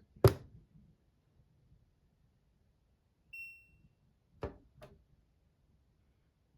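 Washing machine control panel giving one short electronic beep about three seconds in, the acknowledgement of the spin button being held down to set a spin-only cycle, followed about a second later by two quick clicks.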